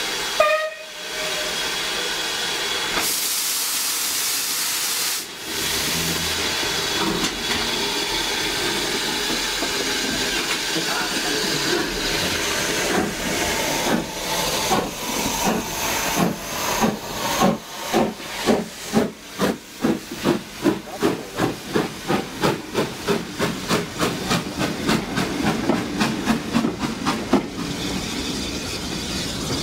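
Steam locomotive hissing steam, with a sharper, louder hiss about three seconds in. About halfway through it starts pulling away, its exhaust chuffs quickening steadily.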